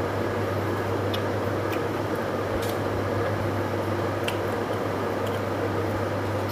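Eating by hand: a few small sharp clicks and soft squelches of fingers working food and of chewing, over a steady low hum and hiss.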